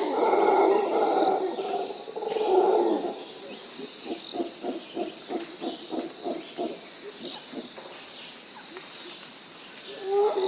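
Gibbons calling: two loud hooting calls, then a run of about a dozen short, evenly spaced notes at about four a second, and another loud call starting near the end.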